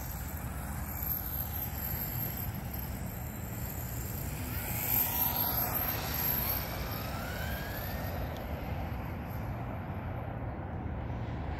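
Brushless electric motor of a 6S Redcat Volcano RC truck whining as it speeds across the lot, the pitch rising and falling with throttle, over a steady low rumble.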